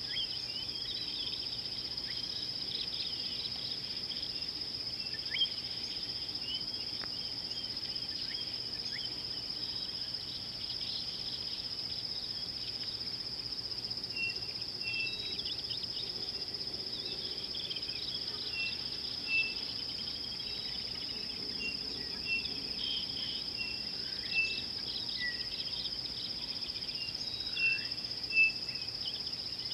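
Steady high-pitched insect chorus with scattered bird chirps over it. From about halfway, a bird repeats a short note again and again.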